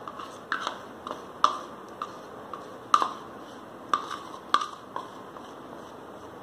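Metal spoon scraping melted chocolate out of a bowl and knocking against it: about a dozen sharp, irregular clinks, each with a short ring.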